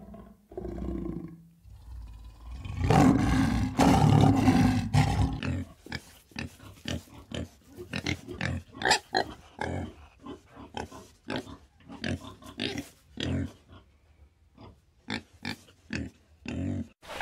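An animal's calls: a loud, low call lasting about two and a half seconds, starting about three seconds in, then a run of short, sharp sounds, a few a second.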